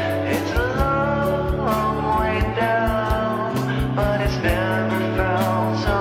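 Background music: a song with a steady drum beat, bass and a gliding melody line.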